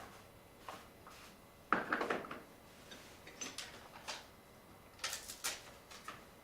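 Clicks and light knocks of small repair tools being handled: a short clatter about two seconds in, then a few separate taps spread through the rest.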